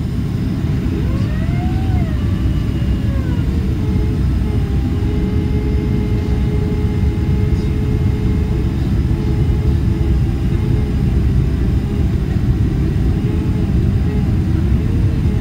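Cabin noise inside a Boeing 767-300ER descending on approach with flaps extended: a steady low rush of airflow and engine noise. Over it runs an engine hum that rises and falls in pitch in the first few seconds, then holds nearly steady.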